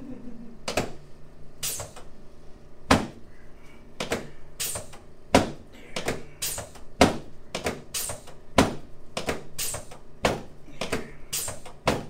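Chiropractic treatment on the chest: a long irregular run of sharp clicks and knocks, about one to two a second, as the chiropractor's hands work on the patient lying on the treatment table.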